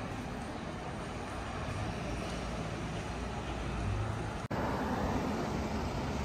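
City street traffic: a steady hum of passing cars and vehicles. About four and a half seconds in, the sound cuts off for an instant, an edit in the recording.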